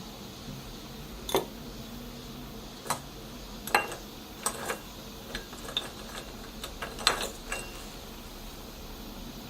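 Frozen espresso cubes dropped one after another into a glass, about ten irregular sharp clinks, a few of them leaving a brief glassy ring.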